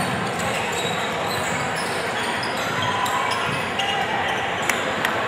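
A basketball being dribbled on a hardwood gym floor, over a steady chatter of spectators.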